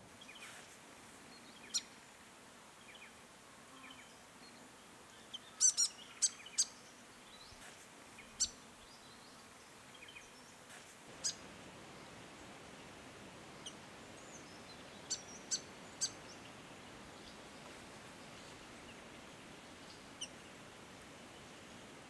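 Grey fantail giving short, sharp high chip calls, singly and in quick runs of two or three, the loudest run about six seconds in. Faint steady background noise runs underneath.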